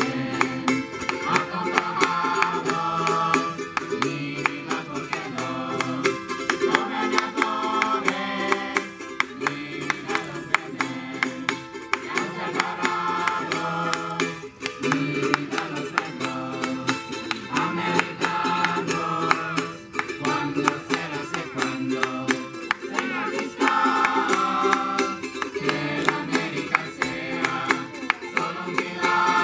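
A group of voices singing together to a strummed ukulele, the sung melody repeating in phrases a few seconds long.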